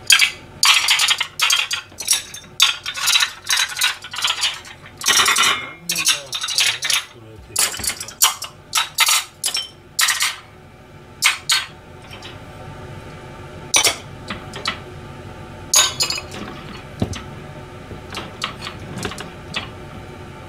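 Ceramic bowls and plates clinking against each other and against the wire racks as they are loaded into a dishwasher drawer. The clinks come thick and fast at first, then thin out to a few after about twelve seconds, over a steady low hum.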